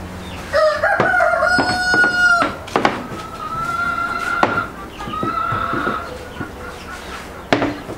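A rooster crowing: one long held call in the first few seconds, followed by two fainter held calls. A wooden rolling pin knocks sharply on a wooden dough board a few times.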